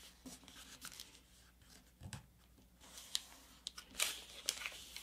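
Faint rustling and crinkling of a sheet of paper being folded and creased by hand, with a few short, sharper crinkles in the second half.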